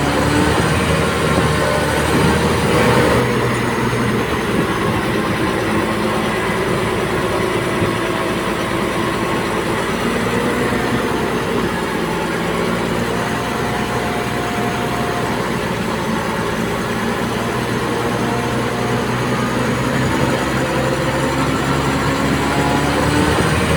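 Komatsu D58P crawler bulldozer at work: its diesel engine running steadily, several engine tones drifting slowly up and down, over a steady clatter from the machine.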